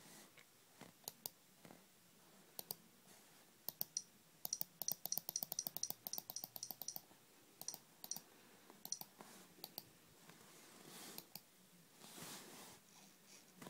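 Typing: faint, sharp key clicks, scattered at first, then a quick run of about ten a second from roughly four to seven seconds in, thinning out to single clicks afterwards. A brief soft rustle comes near the end.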